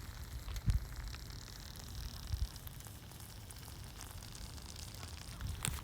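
Faint crackle of a campfire: a low hiss with scattered small sharp pops.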